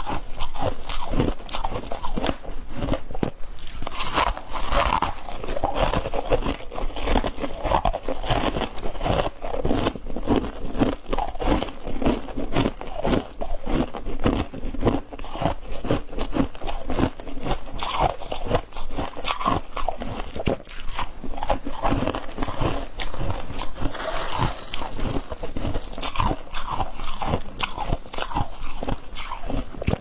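Close-miked biting and chewing of fluffy freezer-frost chunks: a continuous run of crisp, irregular crunches.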